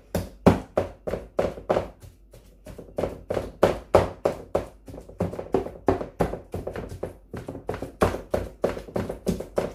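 Wooden pestle pounding boiled chicken mince in a metal pan. It makes a quick, steady run of dull knocks, about three a second, with a brief pause about two seconds in. This is shami kebab mixture being mashed by hand rather than in a blender.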